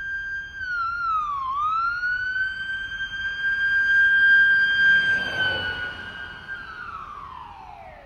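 Ambulance siren holding one high steady tone. It dips in pitch about a second and a half in and glides back up, then slides steadily down in pitch and fades over the last second and a half.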